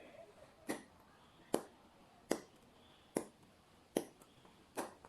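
Six short, evenly spaced scraping strokes, about one every 0.8 s, of a small cupping jar pushed down a child's oiled back in gua sha.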